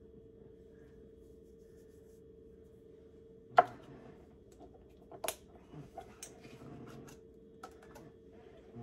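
Spice jars and their shaker caps being handled, tapped and set down on a kitchen counter: one sharp knock about three and a half seconds in, then a run of lighter clicks and taps. A faint steady hum runs underneath.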